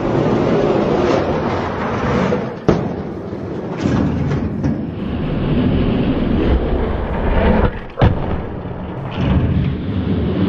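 Die-cast monster trucks rolling and clattering down a plastic race track: a loud, continuous rumble with a few sharp knocks.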